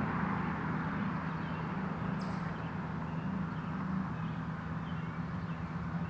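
Steady low droning hum of outdoor background noise, with a few faint bird chirps.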